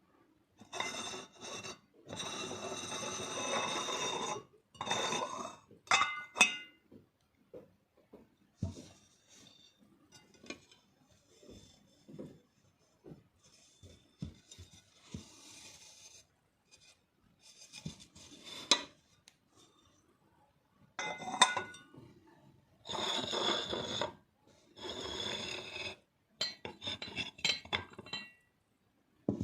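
Porcelain teaware being handled: several spells of rasping, scraping rub of porcelain against a hard surface or another porcelain piece, a few with a faint ringing tone, and a few sharp light clinks between.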